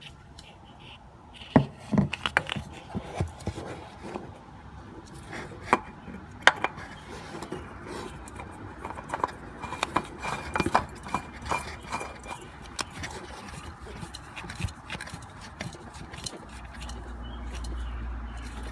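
Scattered metal clicks, taps and scrapes of hand work under a truck as the oil filter and drain plug are fitted and tightened, with a run of quick small clicks about ten seconds in. A steady low rumble comes in near the end.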